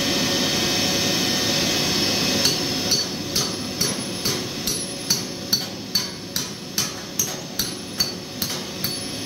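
Hand hammer striking an anchor bolt to drive it down into a hole drilled in the concrete floor: about sixteen sharp metallic strikes, roughly two a second, each with a short ring. They start after a couple of seconds of steady machine noise.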